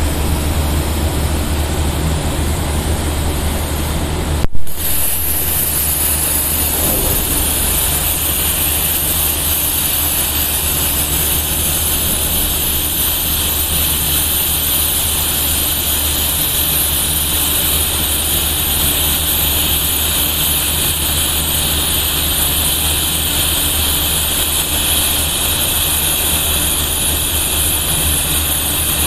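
A 100-amp plasma cutter cutting through 9 mm steel plate: after a brief click about four and a half seconds in, the arc and air jet hiss steadily and loudly over a constant low hum.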